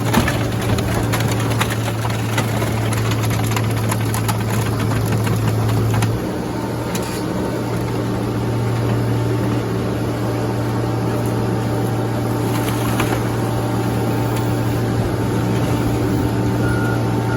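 A heavy vehicle or machine engine running steadily at idle, its note stepping slightly about six seconds in, with a couple of short beeps near the end.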